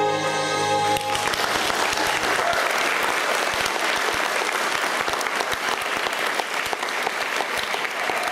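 Music ends on a held note about a second in, then an audience breaks into steady applause.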